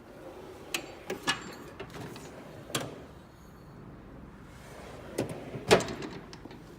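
Metal drawers of a Matco tool cart sliding open and shut, with a series of sharp clicks and clunks; the loudest clunk comes near the end.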